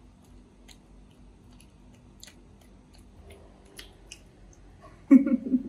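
A baby macaque chewing and nibbling soft steamed lotus seeds: faint scattered clicks and small mouth smacks. Near the end, a short loud burst of a voice.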